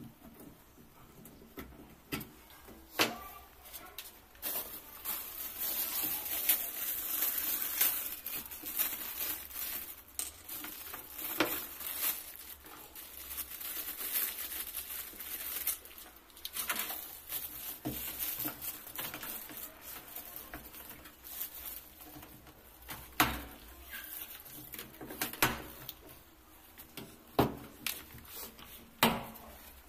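Clear plastic accessory bag rustling and crinkling as it is handled, with several sharp clicks and knocks of small parts being handled.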